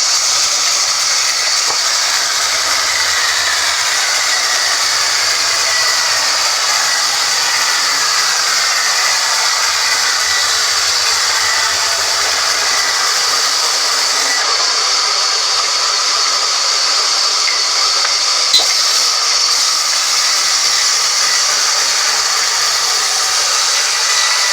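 Woodworking machine running steadily at work on timber, giving an even high-pitched hiss, with one short click about three-quarters of the way through.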